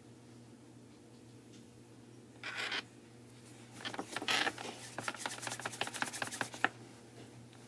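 Close handling noise from hands working on a small object: a short scrape, then a few seconds of rubbing that breaks into a fast run of small clicks, about ten a second, which stops suddenly.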